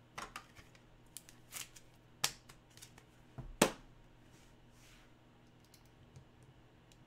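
Scattered light clicks and taps of hard plastic being handled on a desk, the loudest about three and a half seconds in.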